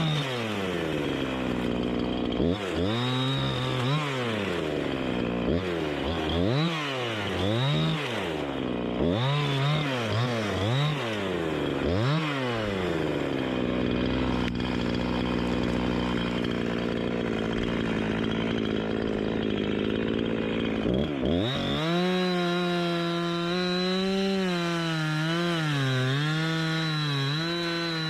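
Chainsaw engine revving up and down over and over, then held at a steady speed for several seconds. About three-quarters of the way in it drops to a lower, wavering pitch, typical of the saw working under load in wood.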